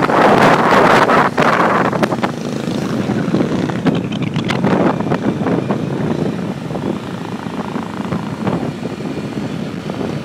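Wind rushing over the microphone with a scooter running underneath while riding along a road; the wind is loudest in the first two seconds, then steadier.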